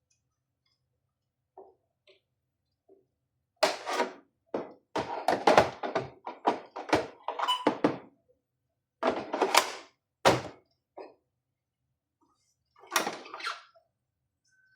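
Knocks and clatter of hard objects being handled: a quick run of sharp clicks and thunks for about four seconds, another short burst a second later, and a last knock near the end.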